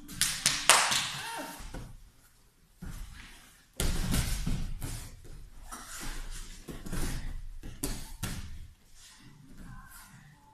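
Bodies thudding and scuffing on a wrestling mat as two people grapple, with loud knocks in the first second and a longer run of thumps and rubbing from about four to eight seconds in.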